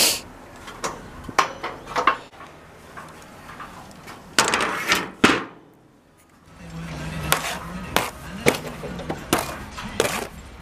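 Sharp knocks and clatter from handling a green plastic mortarboard on scaffold boards, then a steel trowel slapping and scraping mortar on the board. A steady low hum runs under the second half.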